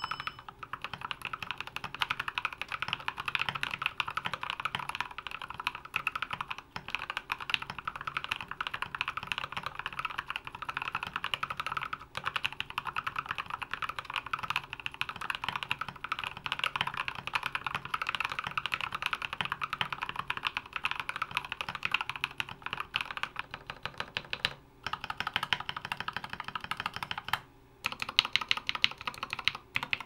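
Fast, continuous typing on a GMMK Pro mechanical keyboard built with pre-lubed Alpaca linear switches and PBT ASA-profile keycaps, a dense run of key clicks that breaks off briefly twice near the end.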